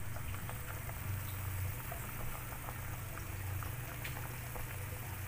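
Pot of beef shank broth with cabbage and corn at a rolling boil: steady bubbling with many small pops over a low steady hum.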